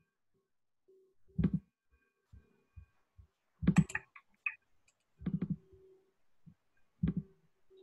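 Clicks and taps on a computer's keys or mouse: about four separate sharp clicks spread out, with fainter ticks between them.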